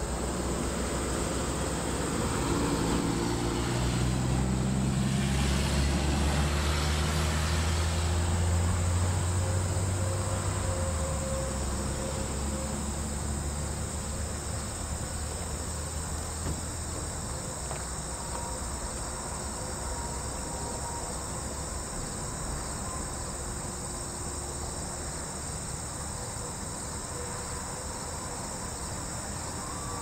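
Steady insect chirring, crickets or similar, with a motor vehicle passing: its low rumble builds a few seconds in and fades away by about twelve seconds.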